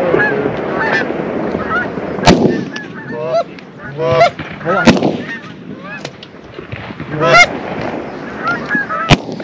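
Canada geese honking over and over, many overlapping calls, with several loud, sharp honks standing out above the rest.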